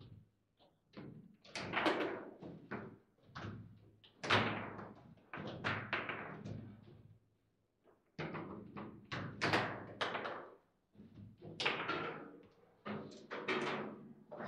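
Foosball table in play: the ball struck by the rod-mounted plastic figures and knocking against the table, with rod thumps, in irregular clusters of sharp knocks and slams with a short pause about eight seconds in.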